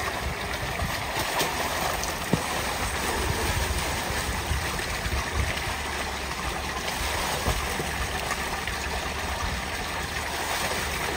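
Tubewell water gushing steadily from a pipe outlet into a concrete tank, with a single short sharp knock about two seconds in.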